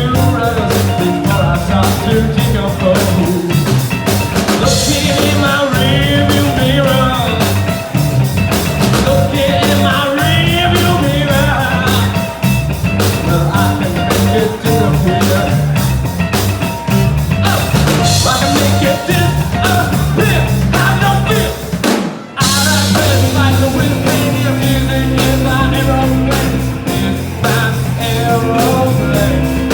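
Live rock band playing: drum kit, bass and guitar with a singer. The music stops for a split second about two-thirds of the way through, then the band comes back in.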